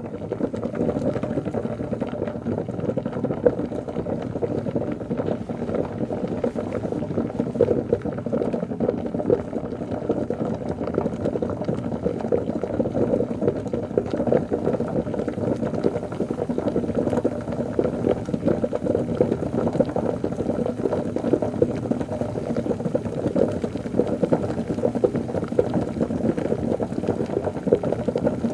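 Liquid bubbling continuously and lightly: a dense, steady patter of small bubbles that holds an even level throughout.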